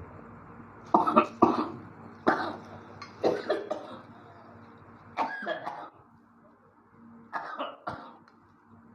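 A man coughing and clearing his throat in about five short fits, bringing up phlegm loosened by spice-smoke inhalation.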